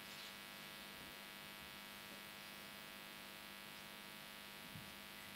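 Near silence with a steady electrical mains hum in the recording.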